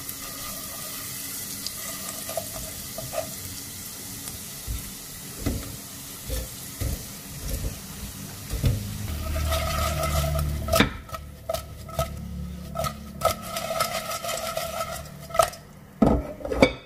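Fried potatoes sizzling in hot oil and spice paste in a nonstick pot. About halfway through, the pot starts to clatter and scrape as the potatoes are tossed in the masala, with sharp knocks, the loudest near the end.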